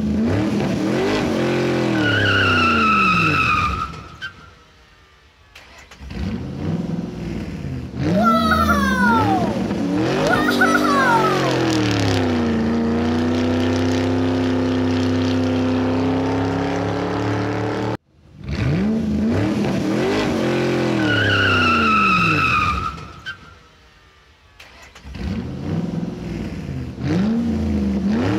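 Added car sound effect: an engine revving up and down with high squealing tones, then holding a steady drone. It drops out twice for a second or two, and the same effect starts over about two-thirds of the way through.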